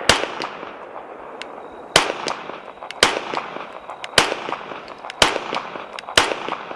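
Pistol shots fired one at a time at a steady pace: six sharp, loud cracks about a second apart, each with a short echo, and fainter ticks between them.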